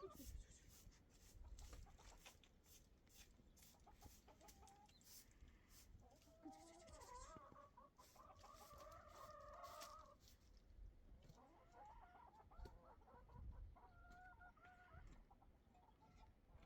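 Chickens clucking faintly in short runs of calls, with scattered light ticks and taps.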